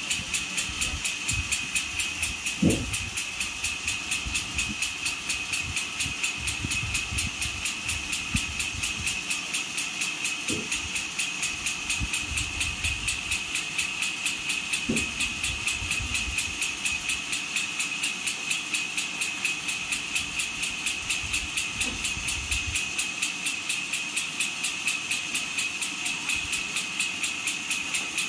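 An engine running steadily with a fast, even pulse of a little over three beats a second and a high whine over it. Dull low thuds come now and then, the loudest about three seconds in, as heavy logs are levered and shifted with a bar, stopping a little after two-thirds of the way through.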